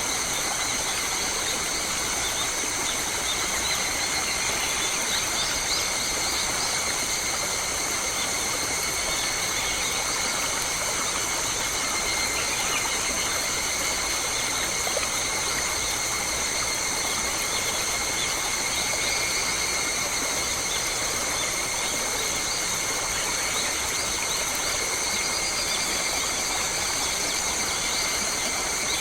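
Forest ambience: a steady high-pitched drone made of several constant tones over a soft hiss, with a few faint bird calls.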